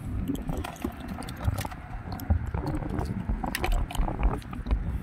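Close handling noise: irregular clicks, taps and rustles with low thumps, as a freshly landed small fish is handled on the rocks.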